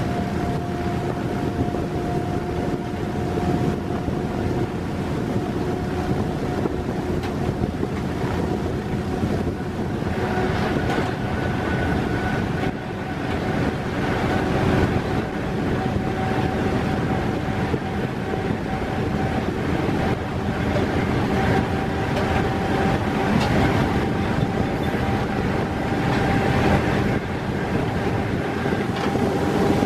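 Diesel-electric locomotive heard from inside its cab while running at speed: a steady mix of engine, wheels-on-rail noise and wind, with a whine that slowly rises in pitch. From about ten seconds in, added clatter from running alongside a long train of coal hopper wagons on the next track.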